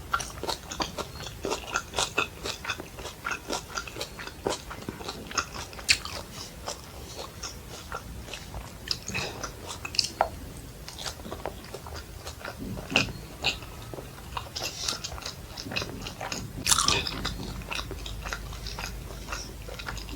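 A person chewing food close to the microphone: dense small wet clicks and smacks of the mouth, with one louder bite about three-quarters through.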